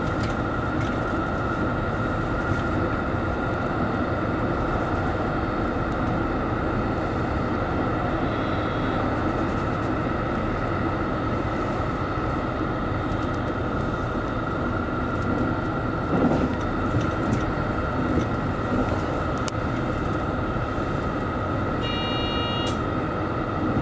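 JR Central Series 85 diesel express railcar running at speed, heard from inside its front car: steady diesel drone and rumble of wheels on rail, with a constant whine over it. There is a brief louder swell about two-thirds of the way through.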